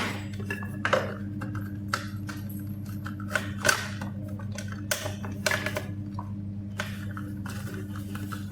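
Scattered light metallic clicks and clinks of tools and small parts being handled, about a second or so apart, over a steady low hum.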